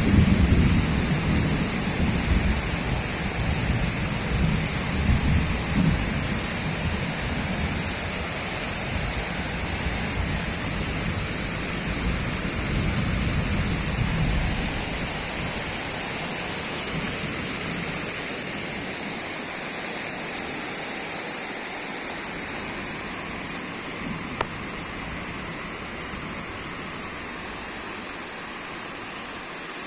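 Heavy rain pouring down steadily. A low rumble, loudest at the very start, runs under the rain and dies away about halfway through, with a single sharp tick about two-thirds of the way in.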